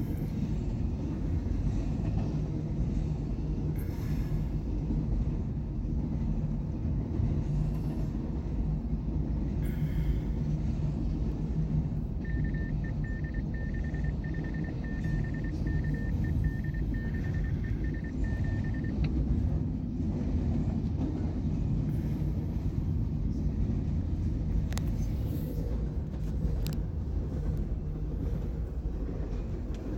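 Double-stack container train rolling steadily past: a constant low rumble of wheels on the rails. A high tone pulses on and off for about six seconds, starting about twelve seconds in.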